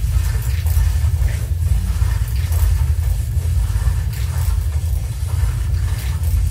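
Electroacoustic collage playing back: a steady, dense low rumbling drone with faint clicks above it, built from layered, processed recordings of a historic laundry mangle turning ceaselessly.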